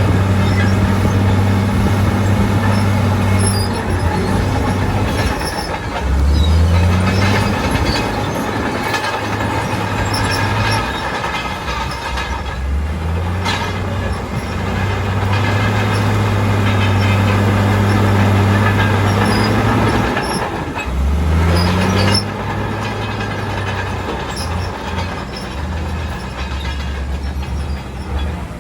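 Heavy diesel earthmoving machinery working under load, the engine note dropping and climbing again about six, thirteen and twenty-one seconds in, over steady metallic clanking and squealing typical of a bulldozer's steel tracks.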